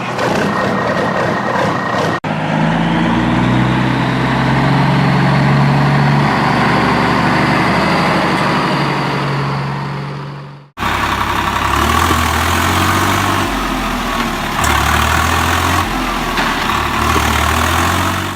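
Heavy truck engine idling and running, in spliced clips that cut off abruptly twice, with the engine pitch stepping up and down in the later part.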